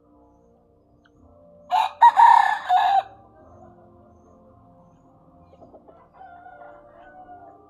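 A rooster crows once, loudly, about two seconds in, the crow lasting about a second. Fainter chicken clucks and calls follow near the end.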